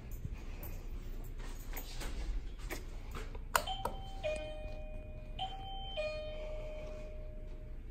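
Wireless doorbell chime at a reception window: a button click, then a two-note ding-dong, high then low, that plays twice, the last note ringing on for about two seconds.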